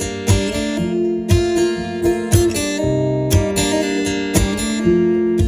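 Acoustic guitar strummed in a steady rhythm, a strong stroke about once a second, playing the instrumental break of a live song.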